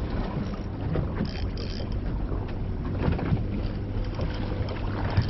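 Fishing boat at sea: a steady low hum with wind buffeting the microphone and water noise.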